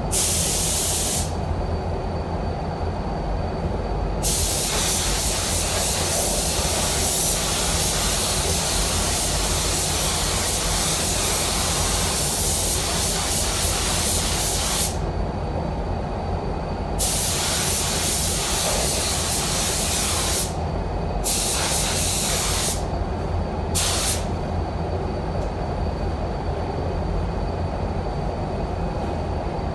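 SATA 5000 RP air spray gun spraying clearcoat: a loud air hiss in gun-trigger passes, a brief one at the start, a long one of about ten seconds, then shorter ones ending in two quick pulls around 23 and 24 seconds in. A steady low rumble runs underneath.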